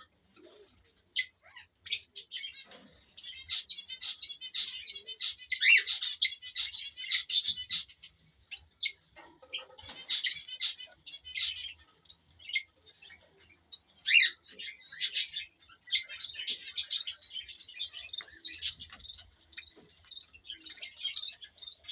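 Male cockatiel's courtship song to a female: rapid runs of high chirps and whistled notes in phrases, with short pauses between them.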